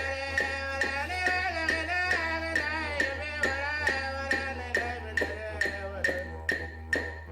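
Background music: a wavering melodic line over a low steady drone, with a steady beat of taps about twice a second.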